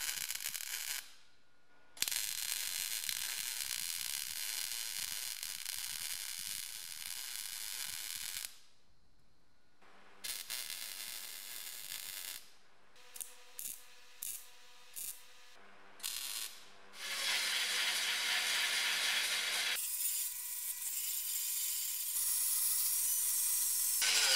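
Wire-feed (MIG) welder arcing on the car body's sheet steel: several bead runs lasting a few seconds each, separated by short pauses. About two-thirds of the way through comes a cluster of brief spot-weld bursts.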